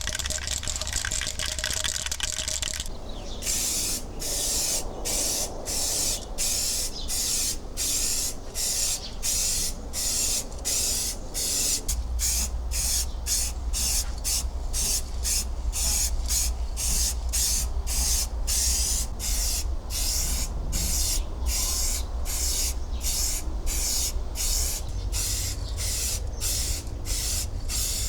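A steady rhythm of short hissing strokes, about one and a half a second, begins about three seconds in, over a low steady hum.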